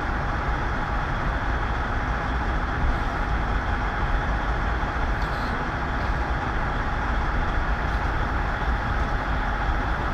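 Freightliner truck's diesel engine idling steadily, a constant low rumble with a faint steady whine above it.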